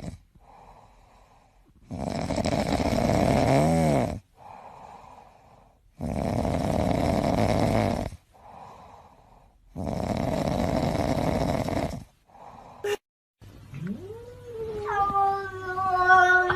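A cat snoring: three loud breaths in, each about two seconds long and some four seconds apart, with faint breaths out between them. After a short break, a cat lets out a long meow that rises in pitch and then holds steady.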